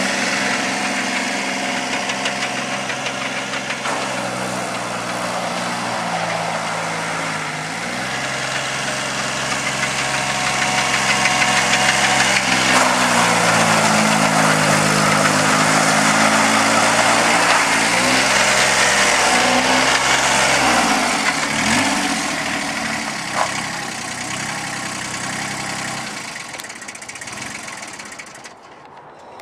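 Engine of a Kubota CF-2200 eight-wheeled mini dumper running as the machine drives about, its pitch rising and falling with the throttle. It is louder in the middle stretch and fades out near the end.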